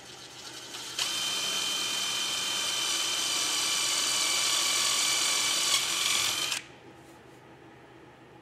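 Cordless drill with a 7/64-inch bit drilling a pilot hole into a boat's gel-coated bulkhead. It runs slowly at first, then about a second in runs at full speed with a steady high whine for about five seconds and stops suddenly.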